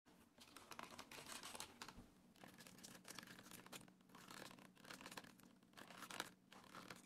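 Faint scratching and rasping of thread drawn through stitching holes as layers of veg-tan leather are hand-sewn with a needle.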